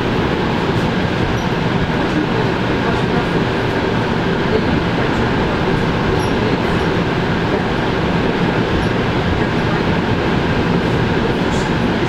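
Electric train heard from inside the carriage, running at speed: a loud, steady noise of wheels on rails and the moving car.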